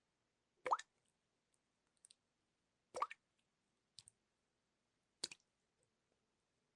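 Water drops plopping one at a time, each a short rising bloop, three clear drops about two and a quarter seconds apart with fainter ticks between them.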